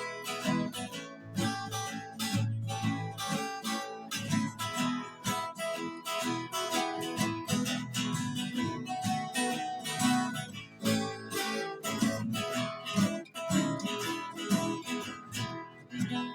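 A restored old acoustic guitar strung with flatwound strings, played with a pick: a tune of strummed chords and picked notes in a steady rhythm.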